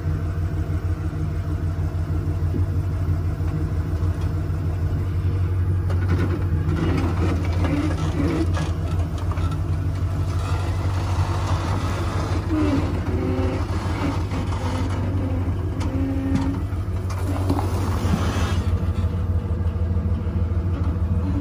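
Stripped-down Ford Bronco's engine running low and steady under light load as the rig crawls over rocks, with irregular scraping and clattering through the middle stretch.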